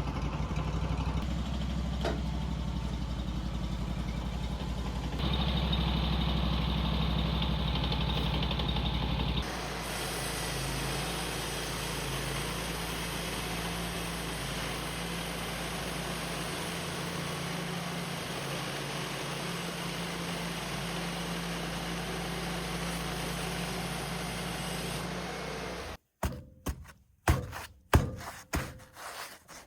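An engine runs steadily, its tone changing abruptly a few times. Near the end it breaks into several short loud bursts with silent gaps between them.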